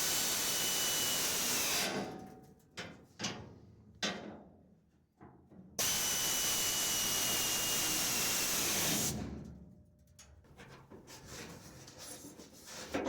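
Handheld power tool run twice in steady bursts of about two and three seconds, a high whine over a hissing rush that sags in pitch as each burst stops. Light knocks and clatter between and after the runs.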